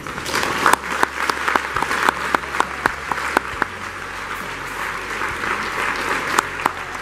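Audience applauding, with sharp individual claps standing out in the first few seconds before it settles into a steadier, softer clapping.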